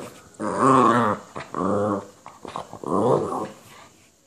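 Small terrier-type dog making three long, wavering growl-like vocalizations in a row: the excited grumbling 'talking' of a wound-up dog.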